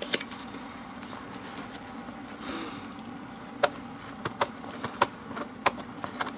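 Scattered sharp clicks and light taps from hand work on a leather baseball glove, a few at first and more frequent in the second half, over a steady low hum.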